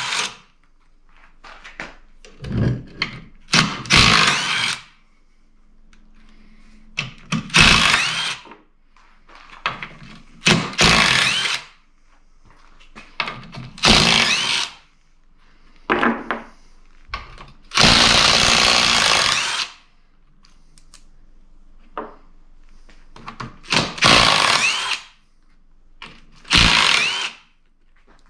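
Cordless drill-driver with a socket extension spinning out the bolts of a transfer case's rear housing. It runs in about ten short bursts of a second or two with pauses between, the longest run near the middle.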